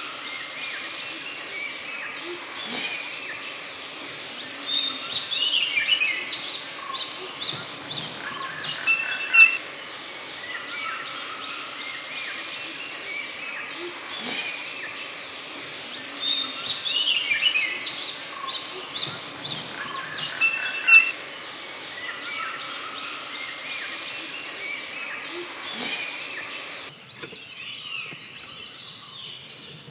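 Forest birds calling over a steady background chorus of chirps, barbets among them. Twice comes a loud burst of rapid notes running downward in pitch, each lasting several seconds.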